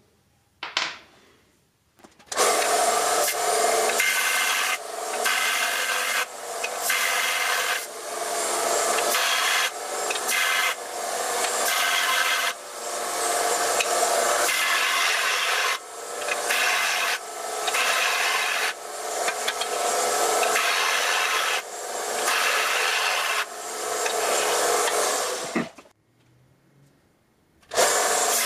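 Central Machinery bench belt sander grinding a small metal pipe fitting held against the running belt in repeated short passes, with brief dips in level between passes. Near the end the motor winds down with a falling whine, goes quiet for about two seconds, then the grinding starts again.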